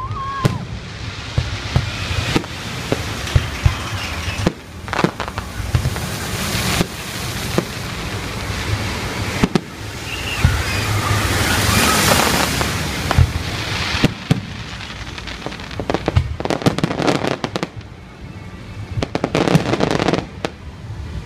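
Fireworks display: aerial shells bursting with sharp bangs, rising to a dense stretch of crackling about ten to thirteen seconds in, then a rapid run of sharp reports toward the end.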